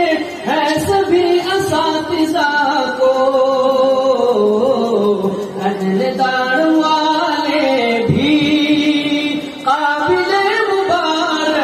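A man singing an Urdu tarana through a microphone and loudspeakers, one voice drawing out long, wavering notes that slide up and down in pitch.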